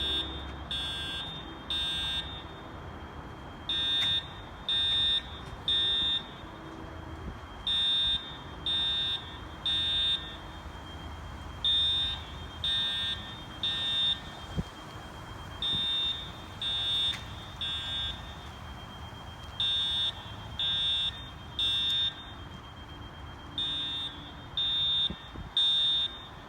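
Fire alarm horn sounding the temporal-3 (code 3) evacuation pattern: three half-second blasts about a second apart, then a pause, repeating every four seconds. A steady high-pitched tone runs underneath.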